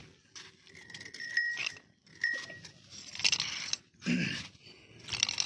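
Footsteps squelching through soft, wet riverbank mud, about five steps, some with a brief squeak.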